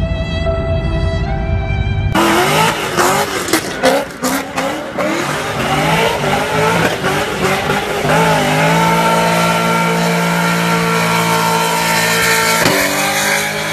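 Cars accelerating hard on a highway for the first two seconds. Then a sports car doing a burnout: the engine revs hard while the spinning rear tyres squeal. From about eight seconds in the engine is held at steady high revs, with a change in pitch near the end.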